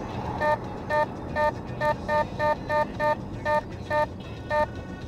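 Genevo One S radar detector beeping an alert, short single-pitched beeps at about two to three a second, uneven in spacing, with a brief pause near the end. The alert signals a detected Ramer 10 police speed radar. Low car cabin and road noise runs underneath.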